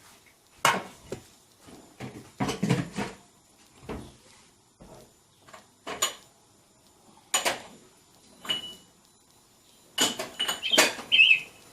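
Irregular knocks, taps and clacks from a plastic bottle of homemade yogurt and kitchen dishes being handled, with a short squeak near the end.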